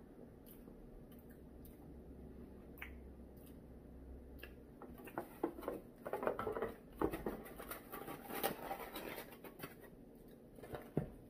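Faint chewing and mouth clicks, then, from about halfway, a few seconds of scraping, crackling and small knocks as a foam takeout container is handled.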